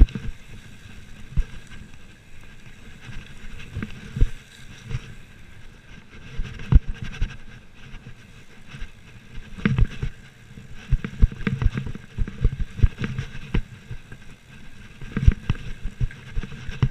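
Mountain bike descending a rough dirt trail at speed: irregular knocks and rattles as it hits roots and bumps, over a steady rushing noise.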